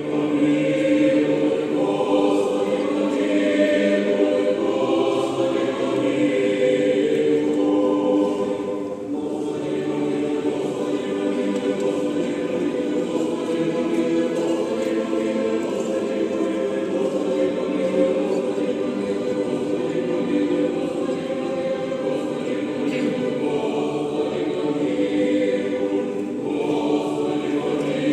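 A choir singing slow, sustained chords, with several voices holding long notes together.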